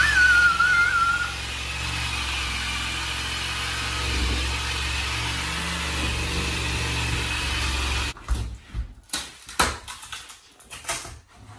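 Corded power tool running steadily as it cuts into the top of a door frame. It stops suddenly about eight seconds in, followed by scattered knocks and clatter as the framing is pulled loose.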